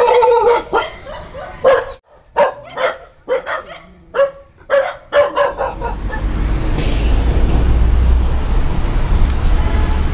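A dog barking repeatedly, about nine barks in the first five seconds. Then steady street traffic noise with a low rumble.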